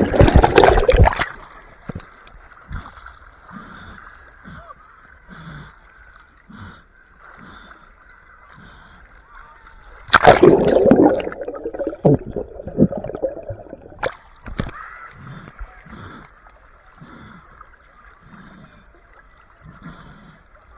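Pool water splashing and bubbling around a camera held underwater: a loud rush of splashing and bubbles at the start, muffled underwater sound with soft regular thuds, then a second loud splash about ten seconds in before it settles.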